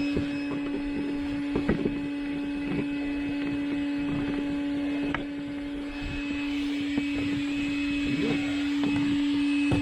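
Small electric air pump running steadily with a constant hum, inflating the inflatable boat, with irregular knocks and clicks from handling.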